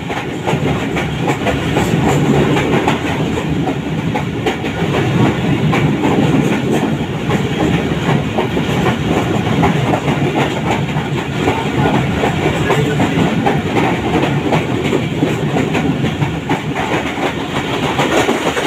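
Passenger train running along the line, heard from aboard: a steady low rumble of the wheels and carriage with dense rattling and clacking throughout.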